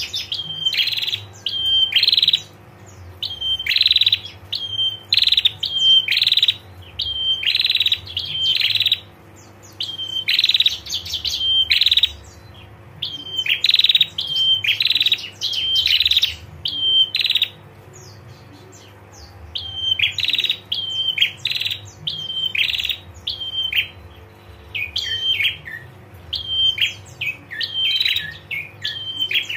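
Female prenjak (prinia) giving its 'ngetir' call: loud, sharp chirping notes repeated about one to two a second, in long runs broken by a few short pauses.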